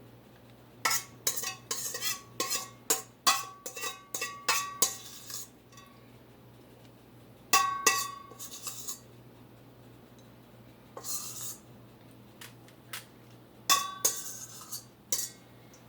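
A metal utensil clinking and tapping against a dish in quick runs of sharp, ringing clicks, about a dozen in the first few seconds and two shorter runs later, as topping is spread over chicken wings.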